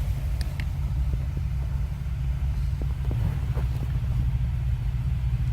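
A steady low rumble runs underneath, with a few faint, scattered clicks of a Phillips screwdriver backing out a screw from a plastic blend door actuator.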